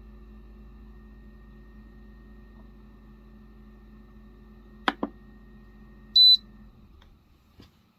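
Dometic caravan fridge's push-button control knob clicking twice, then giving one short, high beep. The fridge's steady hum cuts out about half a second later as it switches off. This is the fault of its stuck control button, which turns the fridge off when pressed; the fault was traced to the fridge's power board.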